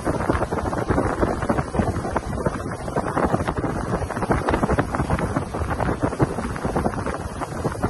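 Wind buffeting the microphone and water rushing along the hull of a boat running at speed, a steady rough rush with constant flutter; no motor pitch stands out.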